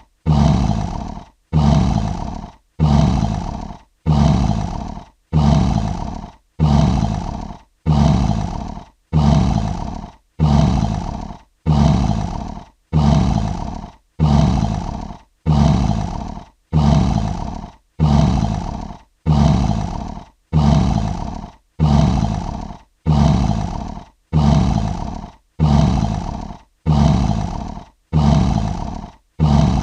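A recorded lion roar, a single short roar under a second long, looped over and over at about one every 1.2 seconds. Each repeat starts loud, fades and cuts off abruptly.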